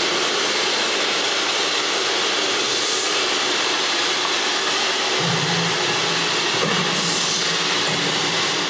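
Steady, loud hiss like static, with a low hum joining in about five seconds in.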